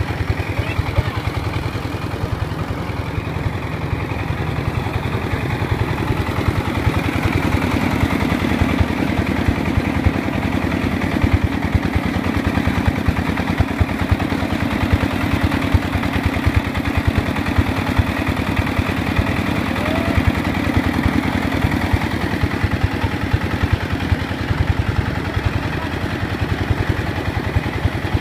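Stationary single-cylinder diesel engine running steadily at a fast even beat, driving a rice threshing machine. A steadier hum joins in through the middle stretch.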